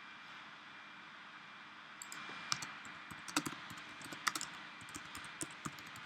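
Typing on a computer keyboard: irregular, quick key clicks starting about two seconds in, over a steady low hiss.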